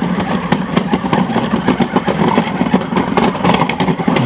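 A ride-on toy truck converted to radio control, with its 2150kv brushless electric motor and plastic drivetrain running as it drives over grass. A steady, rattly clatter made of many small clicks.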